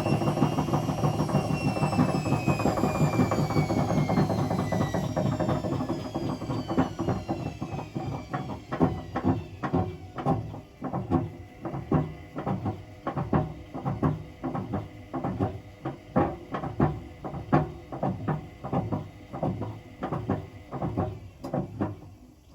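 Hotpoint BHWMXL145 washing machine winding down from a spin burst. The motor's whine falls in pitch over the first ten seconds or so while the drum knocks rhythmically, the knocks slowing and fading as it coasts down. The knocking comes from the drum wobbling on its snapped spider arms.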